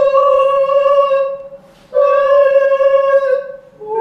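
A woman singing unaccompanied: two long held notes at the same pitch, each about a second and a half, with a short breath between them.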